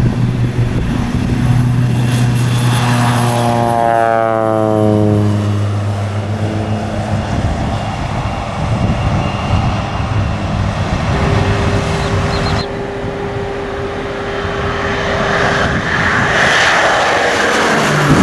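Propeller-driven crop-spraying airplane flying low past: its engine and propeller drone drops sharply in pitch as it goes by about four seconds in, then builds again near the end as another pass comes in.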